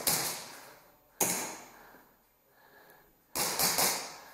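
Airsoft gun shots echoing through a large stairwell hall: sharp cracks at the start and about a second in, then a quick string of several about three and a half seconds in, each trailing off in a long echo.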